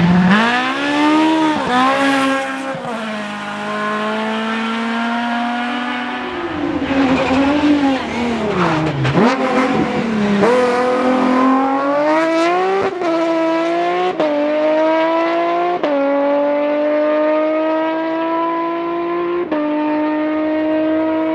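BMW rally car engine at full race load: revving up and down as the driver lifts and gets back on the throttle through a corner, then accelerating away through about four upshifts, each a sudden drop in pitch before it climbs again.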